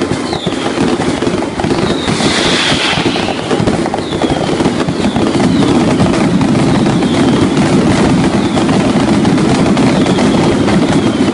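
Fireworks going off in a dense, continuous crackling and popping, with a brighter hissing burst about two seconds in. Short falling whistles repeat roughly once a second.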